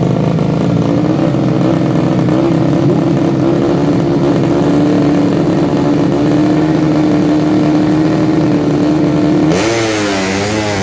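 Motorcycle engine of a 130cc Yamaha Jupiter running at a steady high speed with an even drone. Near the end its pitch starts wavering up and down.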